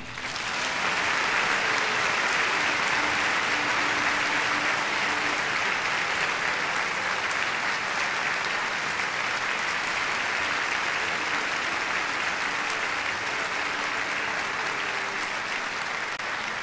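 Theatre audience applauding, swelling over the first second and then holding steady.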